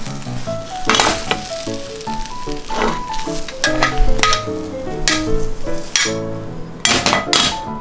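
Oil sizzling in a rectangular tamagoyaki pan as a rolled egg omelette finishes cooking, the sizzle dying away about six seconds in as the pan comes off the heat, with a few sharp scrapes of the pan. Light melodic background music plays over it.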